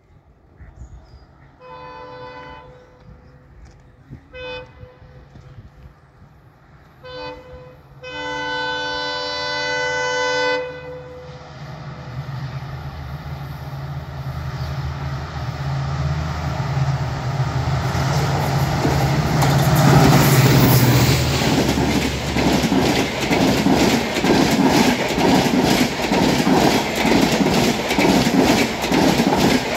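WDP-4D diesel locomotive's two-stroke engine and horn as an express approaches and runs through without stopping. The horn gives a blast, two short toots, then a long blast of about three seconds. The engine rumble then builds to its loudest as the locomotive passes about two-thirds of the way in, followed by the steady rhythmic clatter of the coaches' wheels over the rail joints.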